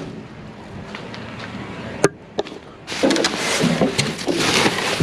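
Trash bags and plastic items being rummaged through in a dumpster: a single sharp knock about two seconds in, then dense crinkling and clattering of plastic for the last two seconds.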